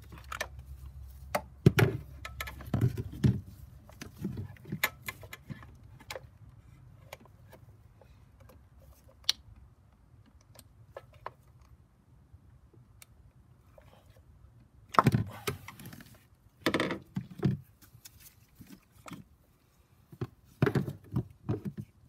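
Plastic clicks, knocks and rattles as the cylinder 6 ignition coil pack of a BMW N54 engine is unclipped and levered out of the cylinder head cover with a screwdriver. The sounds come in scattered single clicks, with louder clusters of knocks about 15, 17 and 21 seconds in.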